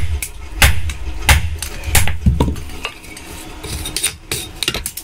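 Hammer blows on a knife blank on an anvil: four sharp metallic strikes in an even rhythm, about three every two seconds, then lighter, quicker taps and clinks over the second half.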